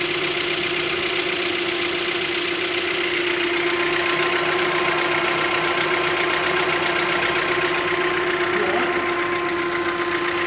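Hyundai Creta's 1.6 Gamma four-cylinder engine idling steadily with a light tec-tec ticking from the top of the engine. The mechanic calls it a normal characteristic of this engine when cold in the morning, not a fault.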